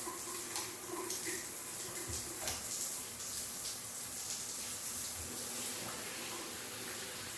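Water spraying from a Delta In2ition shower head and splashing onto the tub floor below, a steady hiss. No rush of water is heard from the pipe or head itself.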